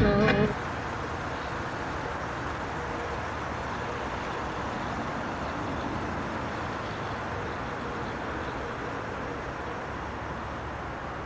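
A snatch of music cuts off about half a second in. After it comes a steady, even rush of outdoor city background noise: the hum of distant traffic.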